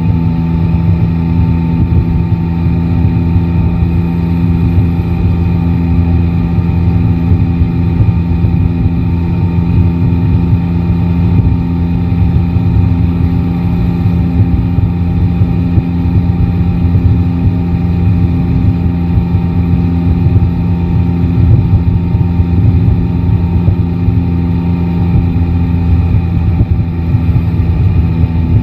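Yamaha Tracer 9 GT's three-cylinder engine running at a steady, unchanging engine speed, with a deep rumble underneath.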